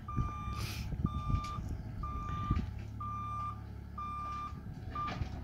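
Mini excavator's travel alarm beeping about once a second as it moves, over the steady low running of its diesel engine, with a few sharp knocks.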